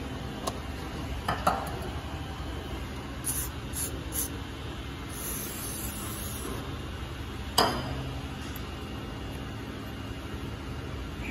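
An aerosol spray can hissing at a brake caliper's pad pins: a few short squirts a few seconds in, then a longer hiss of about a second and a half just past the middle, over a steady background hum. Two sharp metal knocks, one about a second and a half in and a louder one soon after the long spray.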